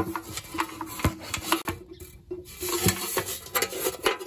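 A metal geocache box, an army-style ammunition can, being opened and searched by hand: its wire latch and lid clank, and irregular sharp knocks and clicks mix with the scrape of metal and of things rubbing inside the can.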